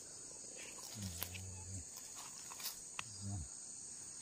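Forest insects keep up a steady high-pitched drone. A faint low voice comes in twice, and there are a few light clicks.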